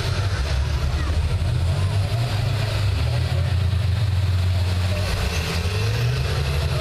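School bus engines running under load with a steady low rumble, one note rising near the end as an engine revs up.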